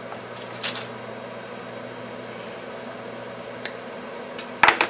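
Small metal hand tools clicking and tapping against wire and the bench, loudest in a quick cluster of clicks near the end, over a steady background hiss.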